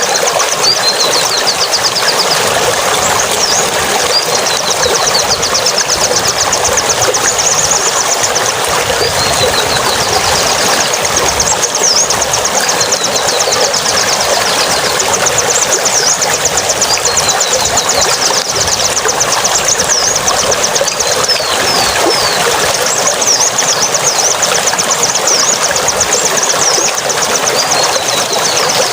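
Steady rushing water, like a stream or small waterfall, with birds chirping over it in quick high trills and short whistled glides that come and go.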